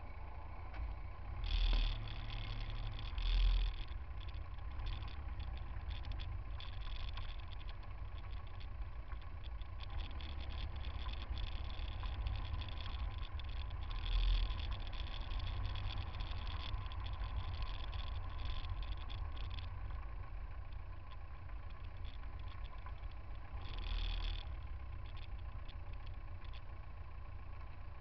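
Car traffic creeping in a jam, heard from a camera on a front bumper close to the road: a steady low rumble of engines and tyres, with four short louder bursts, two near the start, one near the middle and one near the end.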